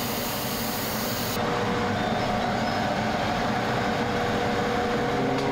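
Kitchen range hood fan running steadily: a rush of air with a faint hum. A higher hiss on top of it cuts off about a second and a half in.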